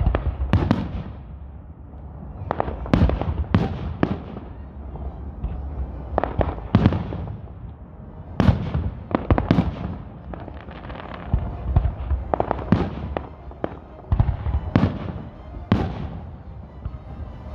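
Aerial fireworks shells bursting overhead in a rapid, irregular series of sharp bangs, several close together at a time, each with a short rumbling tail.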